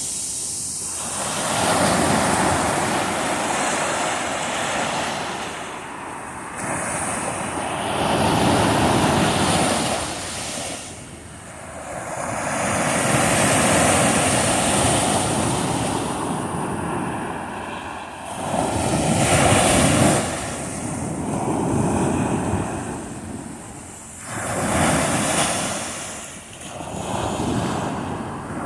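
Waves breaking on a shore, the wash of water rising and falling every few seconds.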